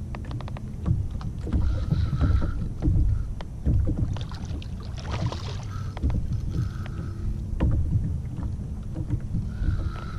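Small boat sitting on the water: irregular slaps and knocks of water against the hull over a low steady rumble, with a brief splashy hiss about halfway through.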